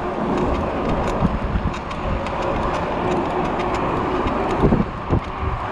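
Steady rushing wind and rolling noise from riding a bicycle, with faint irregular ticks.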